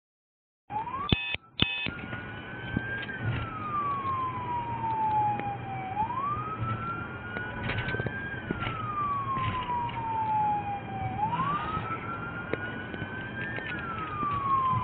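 Police car siren on a slow wail, its pitch climbing and then sinking in long cycles of about five seconds, heard from inside the patrol car over a low engine hum. Two sharp clicks come just after the sound begins, about a second in.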